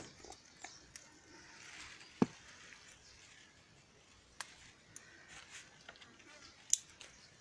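Faint rustling of pepper plant leaves with a handful of sharp clicks as small scissors snip the pepper stems, the loudest click about two seconds in.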